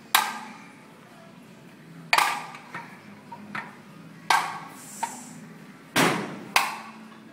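Heavy iron gym weights clanking: five sharp metallic clanks, each with a short ring, spaced about two seconds apart at first and then two in quick succession near the end, with a few lighter knocks in between. The loudest clank comes about six seconds in.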